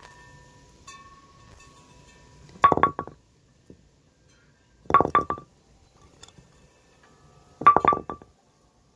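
A bowling pin dropped onto a concrete paving slab three times, about two and a half seconds apart. Each drop is a loud knock followed by a few quick clattering bounces with a short ringing tone.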